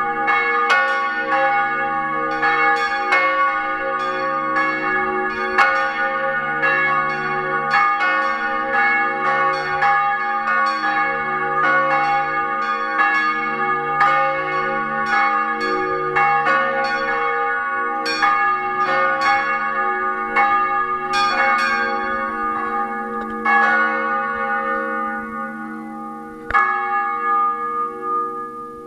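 Cathedral tower bells, cast by Alexander Buchner in 1923–24, swinging and ringing together with rapid overlapping strikes. In the last few seconds the strikes thin out and stop, and the bells' hum dies away.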